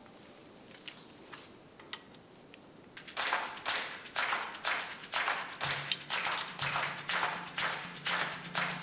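A few light clicks, then a socket ratchet ratcheting in quick repeated strokes, about two a second, as the scooter's cylinder head bolts are run down.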